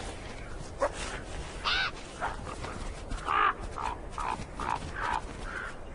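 Gray wolves yipping and whining in a string of short calls that come quicker in the second half.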